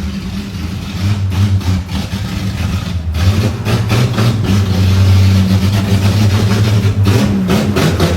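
Chevrolet Caravan's naturally aspirated 4.1 straight-six running with a loud, deep exhaust rumble, its pitch holding fairly steady with small rises and dips.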